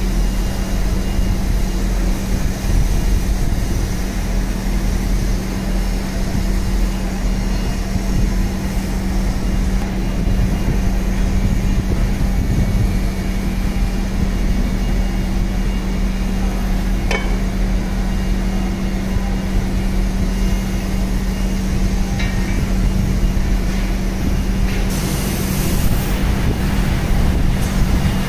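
A steady machine drone with a constant low hum runs throughout. There is one sharp click partway through and a short hiss near the end.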